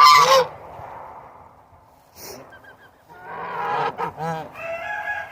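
Domestic goose honking loudly at the start, then quieter calls with a few faint high peeps in between, and a longer held call near the end.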